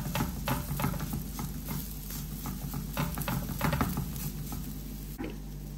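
Fingers patting and pressing soft patty batter flat on a hot flat non-stick tawa, a quick irregular run of soft pats that stops about five seconds in.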